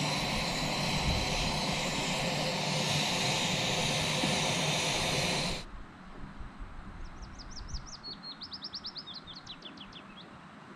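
Camping stove burner hissing steadily, which cuts off abruptly about halfway through. In the quieter open air that follows, a small bird sings a rapid trill of high notes for about three seconds.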